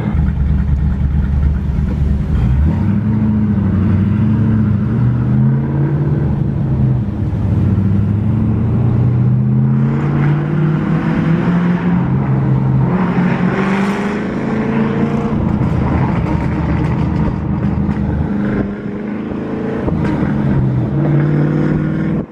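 2005 Mustang GT's 4.6-litre V8 with aftermarket cams, breathing through Carven R-series mufflers, running and being revved: its pitch climbs and drops back several times, climbing highest around the middle.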